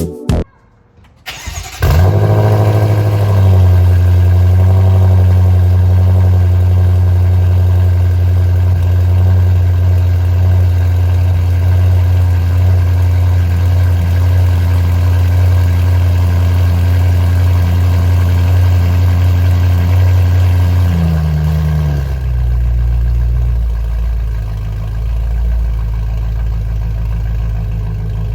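BMW M5 Competition's twin-turbo V8 starting about two seconds in and running at a steady fast idle, then stepping down to a lower, steady idle after about twenty seconds.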